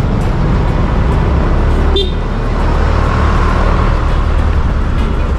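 Motorcycle riding along a street: steady low rumble of the engine and wind on the microphone. One short horn beep about two seconds in.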